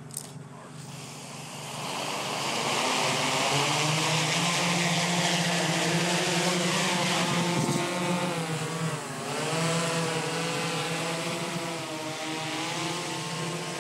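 Freefly ALTA Pro heavy-lift octocopter running on seven of its eight motors with a 13.5 lb payload. Its propellers spool up about two seconds in to a loud steady hum with a whine that dips in pitch around nine seconds in and then comes back. Overloaded this way, it can barely climb.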